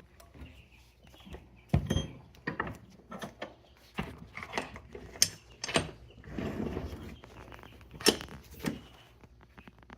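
Scattered knocks and clanks of a metal pipe being handled and set into the pipe jaws of a bench vise, with a short scraping stretch; the loudest knocks come near two seconds in and about eight seconds in.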